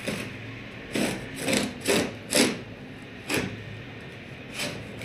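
A scissors blade slitting the packing tape along the seam of a cardboard shipping box: a run of short scraping strokes, about five in quick succession, then one more near the end.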